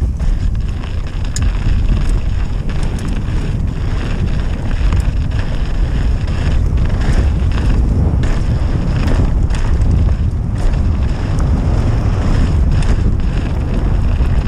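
Wind buffeting the camera microphone as a downhill mountain bike runs fast down a dry dirt and gravel trail. Tyre rumble runs under it, with frequent short clicks and rattles from the bike over the rough ground.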